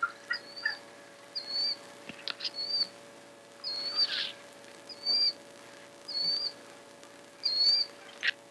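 A bird repeating one short, high chirp about once a second, over a faint steady hum.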